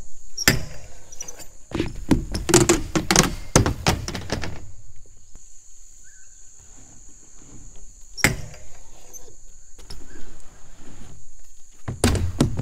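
BMX bike on wooden-style backyard ramps: tyres and frame thudding onto the ramp surface on landings, with a clatter of repeated knocks and rattles for a few seconds early on, another single thud about eight seconds in and a further clatter near the end.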